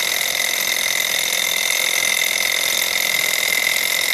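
Small glass-and-metal gamma-type Stirling engine running at speed and driving its belt-driven generator: a steady high-pitched whine over a fast, even mechanical chatter. Its metal-on-metal joints are lubricated with graphite.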